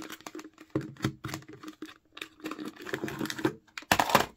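Plastic toy packaging being handled: a run of small clicks, taps and crinkles from the clear plastic jar and its base, with a louder crackle of plastic near the end as the jar is lifted off.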